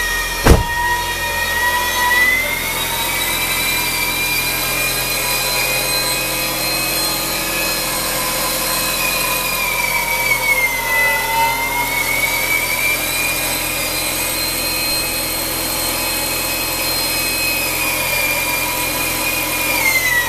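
2000 VW Golf 1.8-litre 20-valve four-cylinder engine idling with a steady high-pitched whine that drifts slowly up and down in pitch, dipping twice. This is the engine noise its owner is showing. A single sharp knock comes about half a second in.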